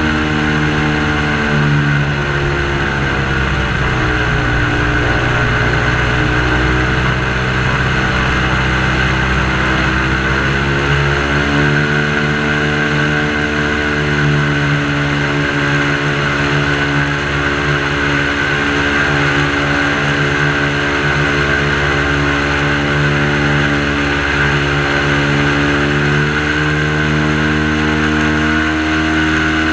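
Airboat engine and propeller running loud and steady. The pitch sags and comes back up about four and ten seconds in, then climbs a little near the end as the boat picks up speed.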